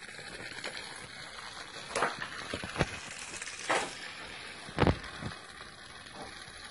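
Battery-powered TrackMaster toy engine's small electric motor and gears whirring steadily as it runs, with a few sharp plastic clacks, the loudest about five seconds in.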